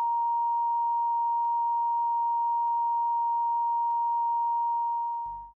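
Steady 1 kHz line-up test tone played over a tape slate and countdown clock, with faint clicks about every second and a quarter. It fades and cuts off just before the end.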